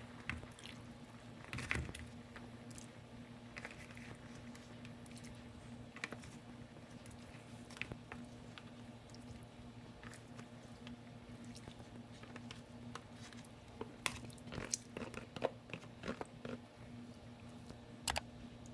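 Faint soft clicks and wet squishes as pieces of cooked chicken are dropped from a container into a pot of simmering rice porridge, with a quicker run of taps near the end as it is stirred with a spatula. A low steady hum runs underneath.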